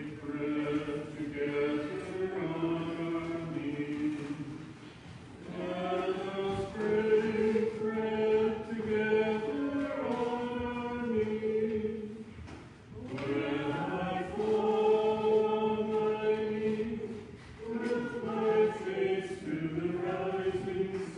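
A choir sings a hymn in long, held phrases, with short pauses about 5, 13 and 17 seconds in.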